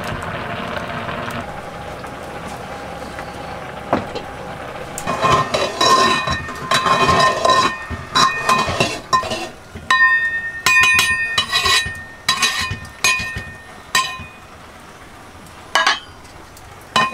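Metal kitchenware clinking and ringing: a run of sharp strikes over several seconds, each leaving a bright ring, with a single knock near the end.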